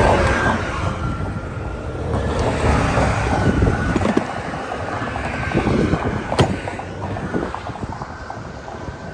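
Highway traffic passing close by with wind buffeting the microphone, over the clatter and clicks of a plastic tool case being opened and tools rummaged through; one sharp click about six and a half seconds in.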